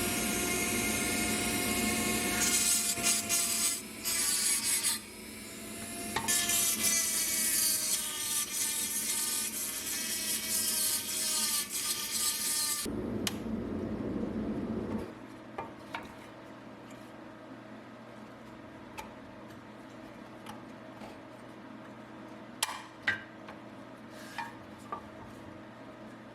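Electric power tool doing abrasive work on metal: a whining motor whose pitch dips and recovers under load over a harsh rasping. It stops about 13 seconds in, followed by a brief low rumble, then scattered light clicks and taps.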